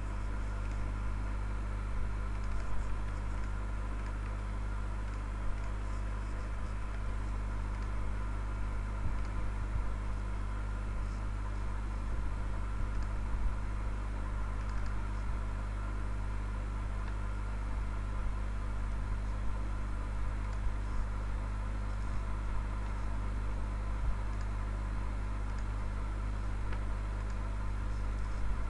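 Steady low hum with hiss from the recording background, with a few faint clicks.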